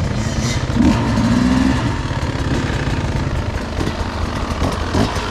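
Two-stroke engine of a 2023 Beta 250RR enduro motorcycle running under a rider, the revs rising and falling as it is ridden along a trail.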